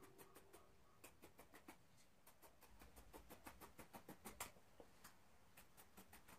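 Scissors snipping through T-shirt knit fabric, a faint run of quick clicking cuts, several a second, with one sharper snip about four and a half seconds in.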